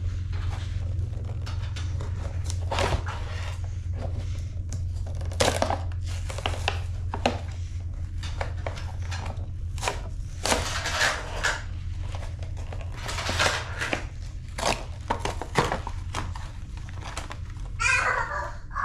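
Cardboard and plastic blister packaging being torn open and crinkled by hand, in irregular rips and rustles, over a steady low hum.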